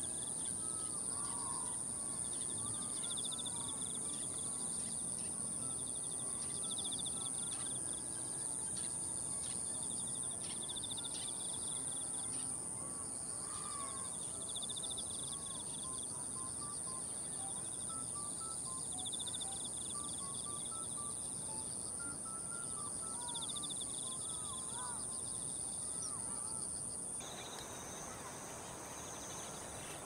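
Autumn insects singing in the grass: one high, steady trill and another chirping in repeated bouts, with a few faint bird calls. Near the end the steady trill stops and a different set of insect sounds takes over.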